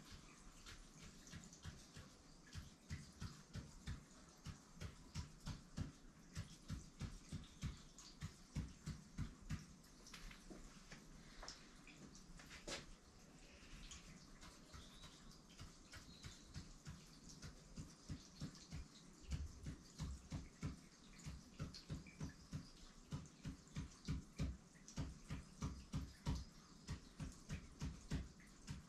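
Hand-held ink marker drawing short tally strokes on a long sheet of paper: a steady run of soft taps, about two or three a second.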